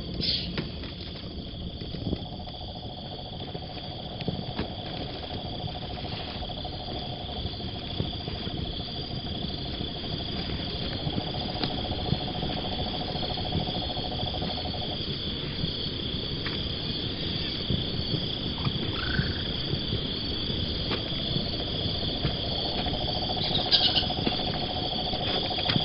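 Rainforest insect chorus: a steady high chirring, with a lower droning trill that fades in and out, and a few sharp clicks near the end.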